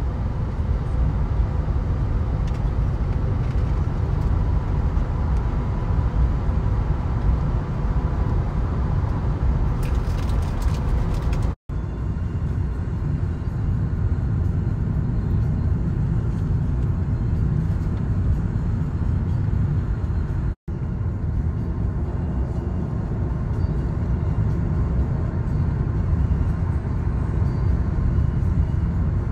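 Road and wind noise of a Tesla electric car driving at motorway speed, heard from inside: a steady low rumble, broken twice by a split-second gap.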